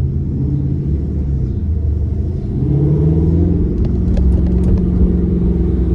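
Car engine and exhaust running with a deep, low drone, then pulling harder about halfway through, rising in pitch and getting louder. A few faint clicks sound a little later.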